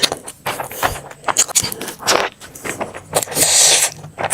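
Close-miked eating sounds: a rapid run of crisp crunches and sharp clicks from chewing, with one longer rustling burst about three and a half seconds in.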